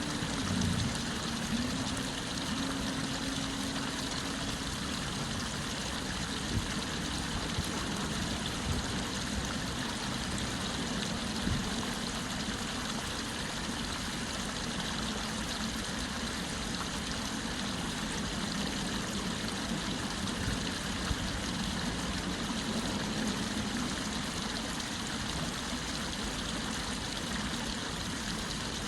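Stream water running steadily, with a low hum of car traffic underneath that dips briefly about half a second in.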